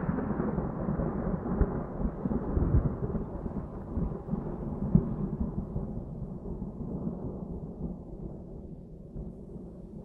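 Thunder rumbling low with a few sharper cracks, slowly dying away.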